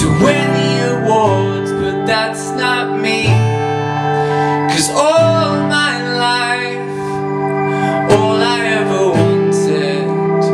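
A man singing long held notes with pitch slides over a strummed acoustic guitar, played live.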